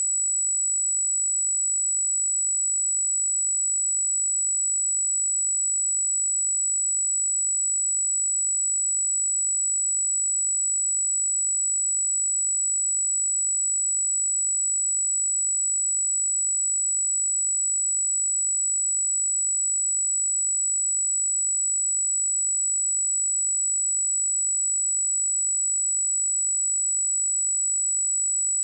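Pure 7862 Hz sine-wave test tone: a single steady, high-pitched whistle held at constant level.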